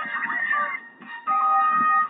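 A Nokia 5730 XpressMusic ringtone playing on a Nokia 216 phone: a plucked, guitar-like melody that drops off about three-quarters of a second in, then comes back with a held note.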